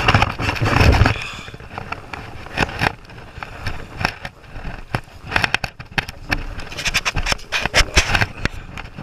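Splashing and wading in shallow river water, with scrapes and knocks of gear close to the microphone. A loud rumble in the first second and a half, then scattered sharp clicks and splashes.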